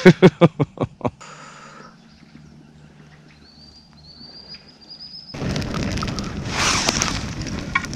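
A short burst of voice at the start, then a quiet spell, then strong cold wind gusting hard against the microphone for the last few seconds.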